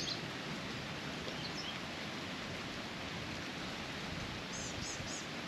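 Steady outdoor background hiss, with a few short bird chirps near the end.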